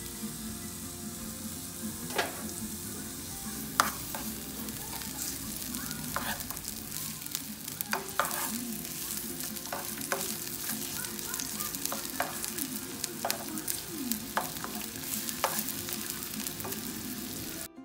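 Sliced onions sizzling in oil in a nonstick frying pan, with a steady hiss. A spatula stirring them clicks and scrapes against the pan every second or two.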